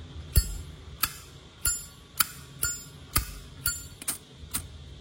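Zippo lighter's lid clinking open and snapping shut over and over, about nine sharp metallic clicks roughly two a second.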